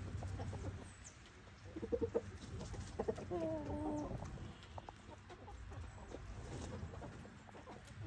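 Domestic chickens clucking as they forage: a short cluck about two seconds in, then a longer wavering call about three seconds in, over faint clicks of beaks pecking at gravel.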